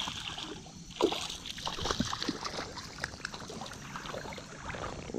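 Water splashing and sloshing irregularly, with scattered sharp clicks and knocks and a louder splash about a second in.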